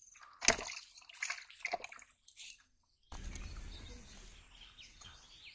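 Wet rustling, squishing and sharp clicks as a tilapia is handled in the mesh of a cast net, the loudest a sharp crack about half a second in. About three seconds in the sound switches abruptly to a steady low outdoor rumble.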